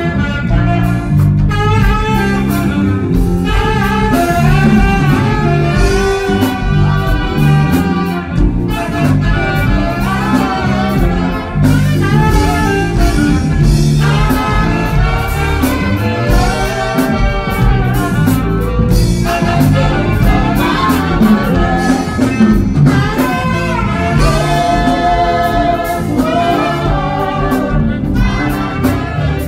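Two saxophones playing a jazzy gospel melody together live over a band backing, with a moving bass line and a steady beat.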